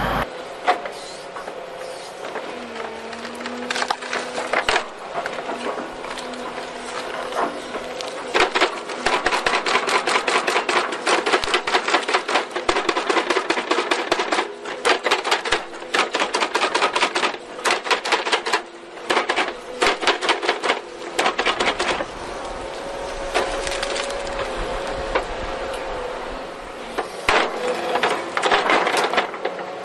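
Excavator-mounted hydraulic stump splitter crushing a tree stump: rapid cracking and splintering of wood in dense runs, busiest through the middle stretch and again near the end. Underneath is a steady hum from the excavator's engine and hydraulics.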